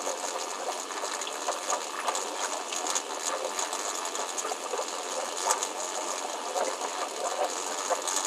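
Steady whirring machine noise mixed with running water, with small irregular ticks, like a small water pump running.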